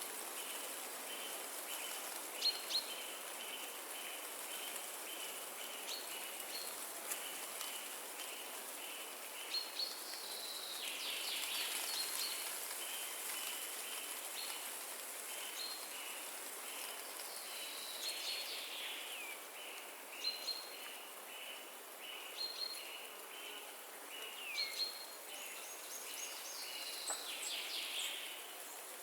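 Forest ambience: a steady rush of wind through the trees, swelling a little about twelve seconds in. Over it, birds call: a long even series of short repeated chirps, plus now and then a whistle sliding downward.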